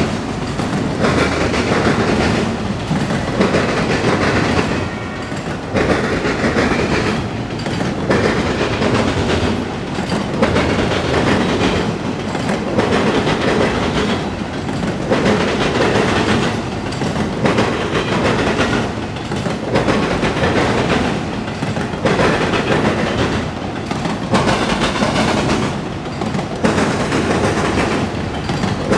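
Freight train of autorack cars rolling past close by: a steady rumble and rattle of steel wheels on rail, with repeated clicks, the loudness swelling and dipping every couple of seconds.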